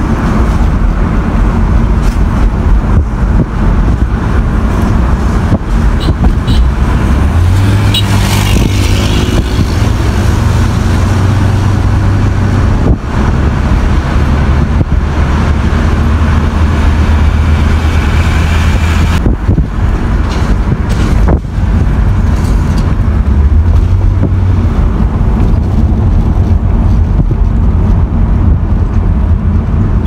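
A car driving along a road, heard from inside the cabin: steady engine and road noise, with the engine note rising as the car speeds up about eight seconds in.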